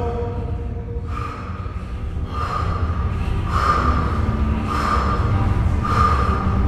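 A deadlifter's heavy, forceful breaths, about one every second and a bit, as he recovers at the bottom between reps with a 250 kg bar. A steady low rumble sits underneath.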